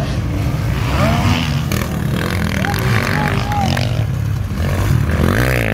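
Several motocross bikes' engines running and revving, their pitch rising and falling as the throttles open and close.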